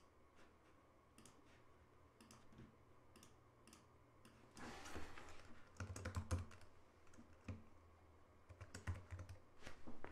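Typing on a computer keyboard: scattered key clicks, then two quick runs of keystrokes, about halfway through and near the end. A faint low hum runs underneath.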